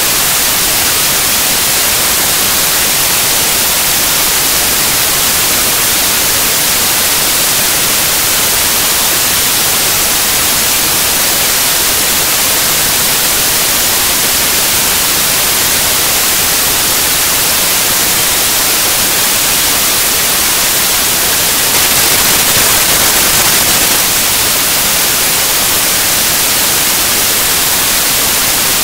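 Loud, steady hiss of static-like white noise, strongest in the treble, with no tones or separate events; it grows slightly louder for about two seconds near the end.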